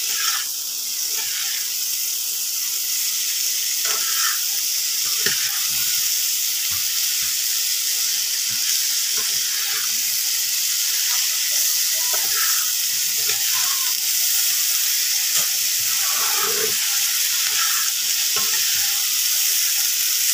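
Onion flower stalks, eggplant and potato sizzling in hot mustard oil in a frying pan: a steady hiss, with a spatula scraping and knocking against the pan now and then as the vegetables are turned.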